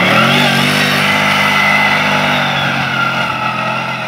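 Quad bike (ATV) engine revving up as it pulls away through mud, holding a steady pitch, then fading as it drives off.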